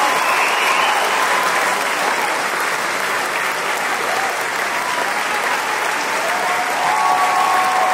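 A large audience applauding steadily, at an even level.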